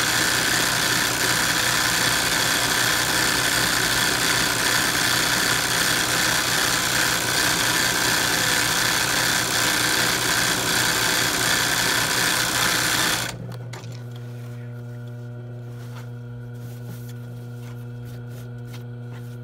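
ROYAL industrial sewing machine running fast in free-motion embroidery, the needle stitching in a rapid, even chatter. About 13 seconds in the stitching stops abruptly, leaving a steady low hum.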